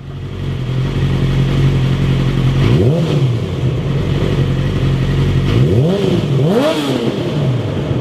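Motorcycle engine revving up and back down three times, once about three seconds in and twice near the end, over the steady low drone of a heavy truck's engine on the road.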